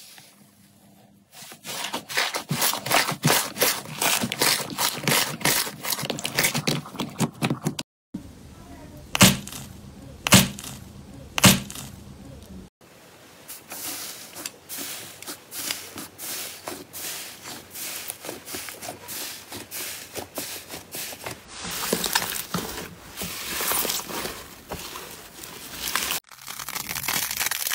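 Hands kneading, pressing and pulling apart several slimes in turn, giving dense crackling and popping as the slime stretches and tears. Three sharp pops stand out about ten seconds in.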